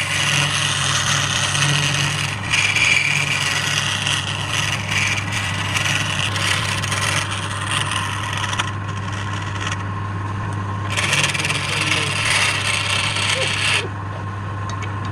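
Wood lathe running with a steady hum while a turning tool scrapes and rubs against the spinning wood in long stretches. The tool comes off the wood for a couple of seconds about nine seconds in and again near the end, leaving only the motor hum.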